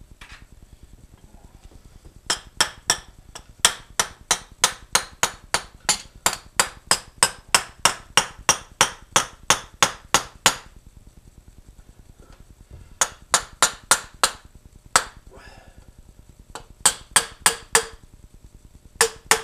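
Light hammer taps driving a tubular steel handle into a lathe chuck key head, about three a second. A long run of taps is followed by a pause, then a few shorter runs.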